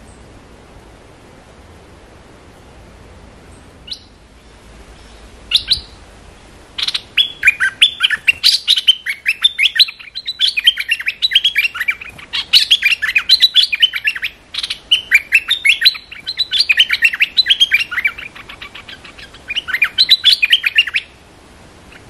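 Stripe-throated bulbul singing close by: a couple of single calls, then from about a third of the way in, long runs of rapid, bubbly warbled notes in several bursts with short breaks, stopping about a second before the end.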